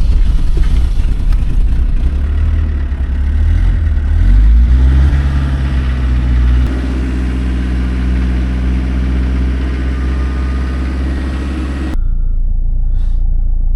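Camper van engine running just after a cold start: rough at first, its pitch shifting about four to six seconds in, then settling into a steady idle. It cuts abruptly to a lower, even rumble near the end.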